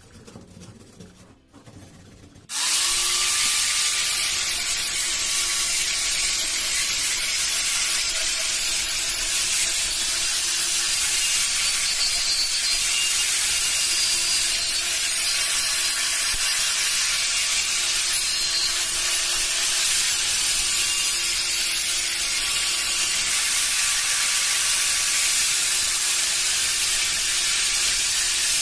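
A power tool starts about two and a half seconds in, its motor tone rising briefly and then holding steady, with a loud, even abrasive hiss as it works the metal of the old blow torch during rust removal or polishing.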